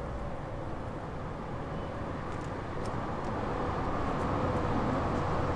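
Steady outdoor street ambience: a low, even rumble of background noise that grows a little louder toward the end.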